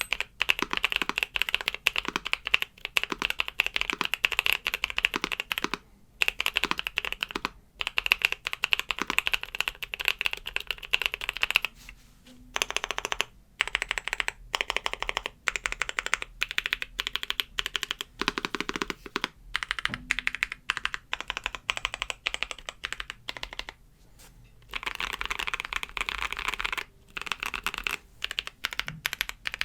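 Typing on a custom Keychron Q1 mechanical keyboard with lubed Boba U4T tactile switches, Nautilus keycaps, tape mod and force-break mod: fast, steady runs of keystrokes broken by a few brief pauses.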